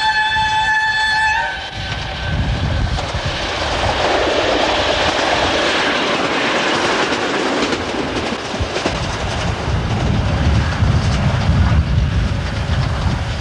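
DART 8100-class electric commuter train sounding a steady horn for about the first second and a half, then passing close by with a loud rushing clatter of wheels on the track. The clatter is loudest about four to seven seconds in and fades as the train draws away, leaving a low rumble near the end.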